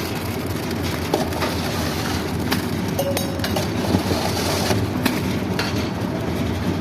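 A machine engine runs steadily on a building site, with scattered clanks and knocks of material and tools, most of them about two and a half to six seconds in.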